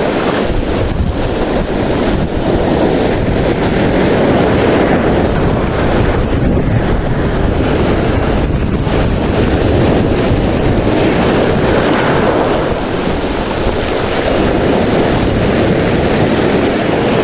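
Steady wind buffeting the microphone over the wash of the sea, a loud even rush and rumble with no engine note or distinct events.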